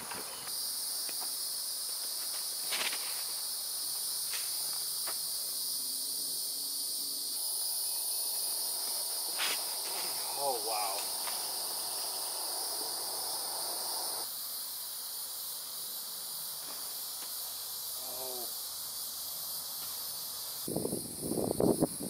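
Steady high-pitched drone of insects, a chorus of cicadas or crickets, with a few faint clicks and two short wavering calls along the way. A short cluster of louder thumps comes near the end.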